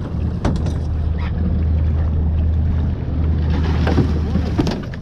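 Boat engine running with a steady low hum, under a rushing haze of wind and water noise, with a few sharp knocks.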